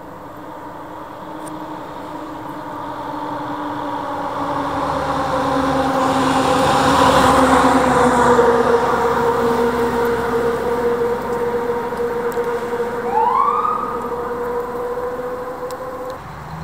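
An emergency vehicle with its siren on, approaching and passing: a steady siren tone that grows louder, is loudest about halfway through, then fades as the pitch drops slightly. A short rising whoop comes a few seconds before the end, and the siren tone stops just before the end.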